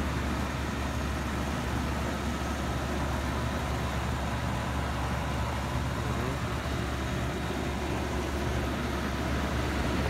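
Outdoor condenser unit of a 1992 Luxaire high-efficiency air conditioner running steadily: a constant low hum under the even rush of the condenser fan, on its first run of the season.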